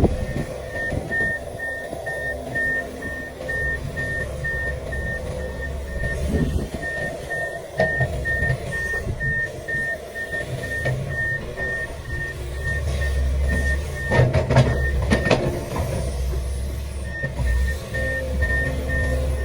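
Komatsu PC500LC excavator's diesel engine running under load, with its travel alarm beeping steadily a few times a second. The beeping pauses for about a second near the end, and a short burst of metallic clanks comes from the machine about fourteen seconds in.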